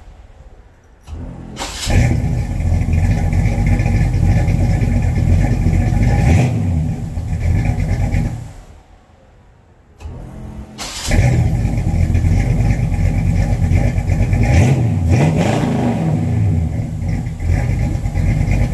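Oldsmobile Starfire V8 cranking briefly and catching almost at once, running with a couple of revs, shutting off, then starting just as quickly again and revving before shutting off. The quick starts are credited by the owner to the ignition timing being set just right and to new heavy-gauge battery cables and extra ground straps.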